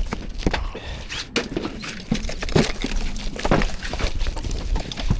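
Irregular knocks and clatters of an old conservatory roof being dismantled by hand, parts knocked loose and handled one after another.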